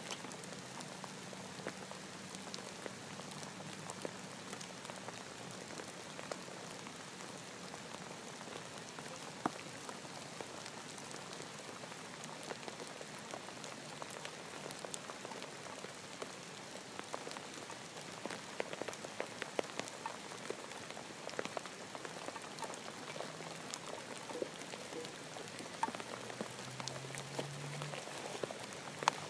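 Steady rain pattering, with many small scattered drops ticking through it.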